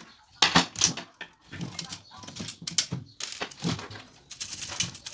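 Irregular clicks, knocks and clatter of plastic parts being handled as a Philco micro system's cabinet is taken apart to remove its panel and circuit board.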